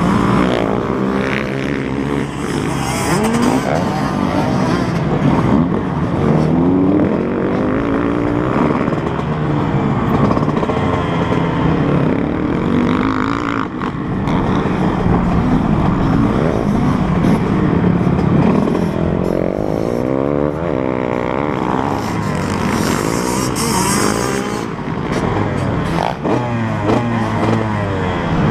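Several dirt bike engines revving on a motocross track, overlapping, their pitch rising and falling as riders accelerate, shift and back off.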